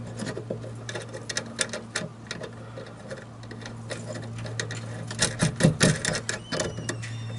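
Small metal nuts being threaded back onto bolts by hand: irregular light clicks and ticks, with a cluster of louder clicks about five to six seconds in, over a steady low hum.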